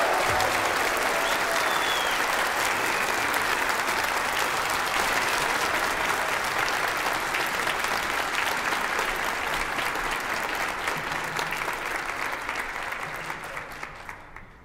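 Large audience applauding in a concert hall, a dense steady clapping that fades out over the last couple of seconds.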